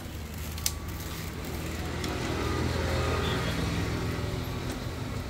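Engine hum of a nearby motor vehicle that swells to its loudest about halfway and then fades, with a single sharp click about a second in.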